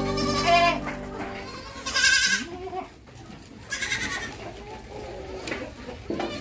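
Goats bleating: three wavering calls about two seconds apart, the middle one the loudest. Background music fades out during the first second or so.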